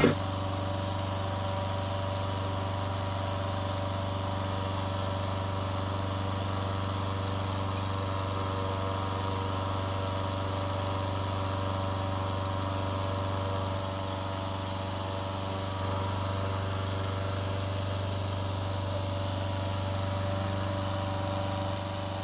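Engine-driven balloon inflator fan running steadily, a low even drone, as a hot air balloon envelope lying on the ground is cold-inflated.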